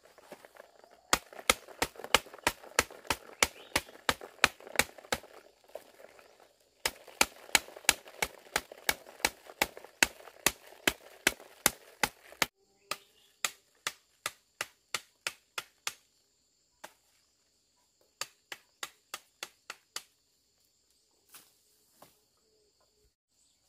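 Rapid sharp knocks, about three or four a second, as an earthy ant nest is knocked to shake its ants and eggs onto a large leaf, with the rustle of falling nest debris between the knocks. After about twelve seconds the knocking slows and thins out to scattered single knocks.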